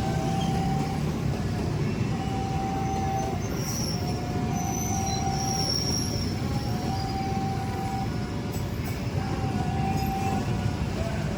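Argo Wilis passenger carriages rolling past with a steady rumble of wheels on rails, and a thin high wheel squeal about halfway through. A single mid-pitched tone sounds for about a second every couple of seconds throughout.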